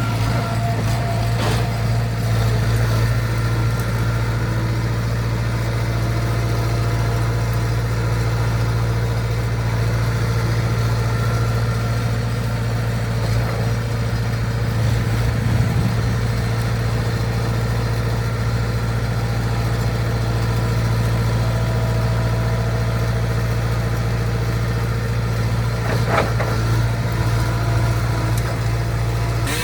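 Skid steer engine running at a steady, unchanging speed, with a few faint knocks near the start and near the end.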